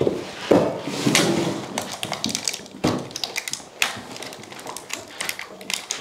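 Irregular knocks, taps and light clicks of a new gas stove set and its parts being unpacked and handled. A few louder knocks come in the first four seconds, followed by a run of lighter, quicker clicks.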